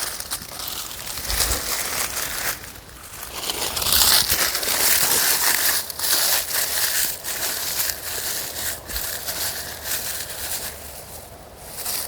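Close crinkling and crackling noise with many irregular clicks, loudest about four to six seconds in.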